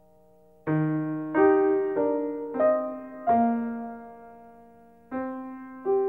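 Slow, quiet piano music under the closing credits. Single notes and chords are struck about every half second to second and left to ring out and fade, with a longer fading pause after the first few before the next notes come in near the end.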